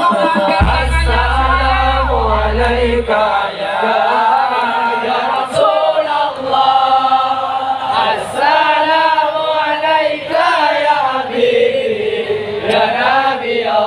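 A group of male voices chanting sholawat together through microphones and loudspeakers, the melody sliding up and down in long lines. A deep low tone sounds under the voices for the first few seconds, then stops.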